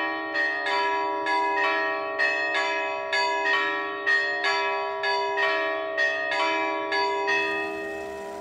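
Church bells ringing in a quick, even peal of about two to three strokes a second, each stroke ringing on under the next. The ringing stops about seven seconds in.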